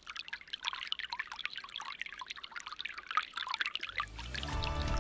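Water trickling and bubbling in many small, irregular splashes. About four seconds in, sustained music chords fade in underneath.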